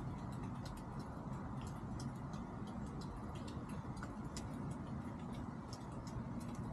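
Chickens pecking at feed: irregular light ticks, several a second, over a steady low background rumble.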